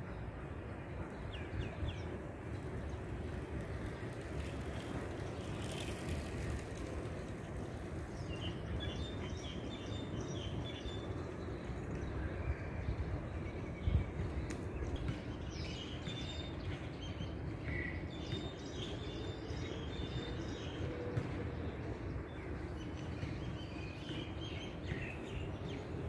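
Small birds chirping: short high calls now and then, some in quick runs of several notes, over a steady low background rumble.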